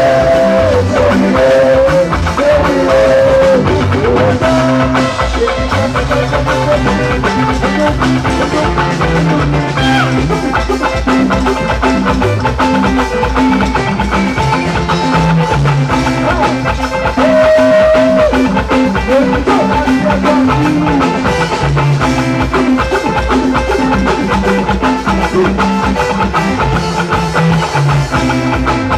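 Music with a steady drum beat, guitar and a singing voice.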